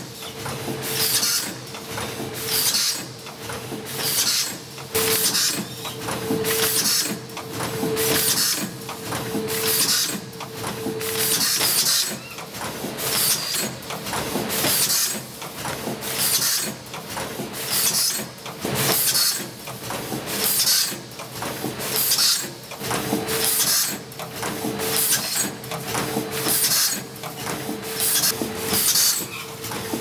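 Double-roll-film pouch packing machine running in a steady cycle, with a sharp hiss of pneumatic air about once a second over continuous mechanical running noise.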